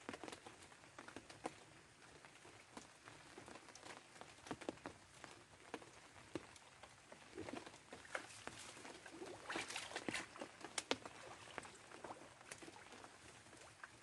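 Faint, irregular rustling and crackling of wet grass and a plastic raincoat as someone moves and handles things in the vegetation, resetting a bird snare, with a denser run of crackles about ten seconds in.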